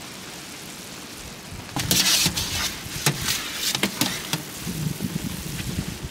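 Maple sap boiling hard in steel pans on a wood-fired barrel stove, a steady rushing hiss. About two seconds in, a metal skimmer is worked through the foaming sap, with splashing, scraping and a few knocks against the pan.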